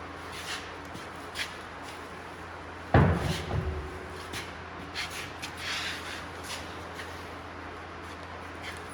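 A single heavy thud about three seconds in, with a brief low tail, amid scattered small clicks and rustling and a steady low hum.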